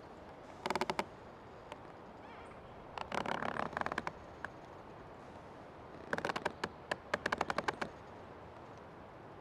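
An old tree creaking in three bouts of rapid, grating pulses: a short one near the start, a longer one about three seconds in, and the longest from about six to eight seconds in. A faint steady hiss lies underneath.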